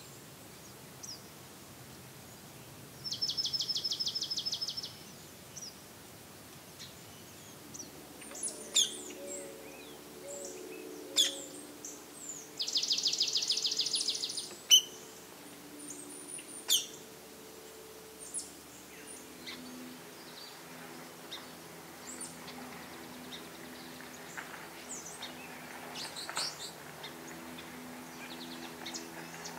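Birds calling: two loud, rapid, dry trills of about two seconds each, one a few seconds in and another about halfway, with sharp single call notes scattered between and after them.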